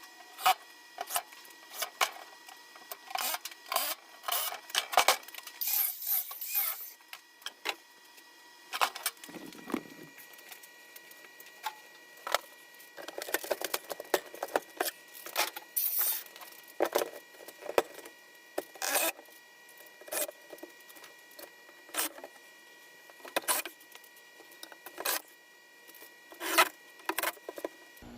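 Irregular knocks, clicks and scrapes of things being handled, set down and slid around, some of it wood, with several longer rubbing or scraping stretches.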